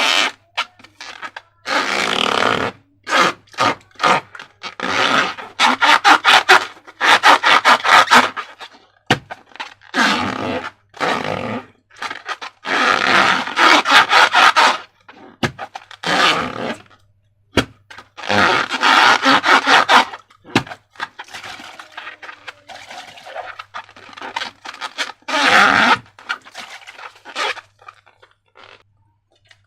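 Slime being squeezed and worked by hand, squelching and crackling in repeated bursts of a second or two with short pauses between.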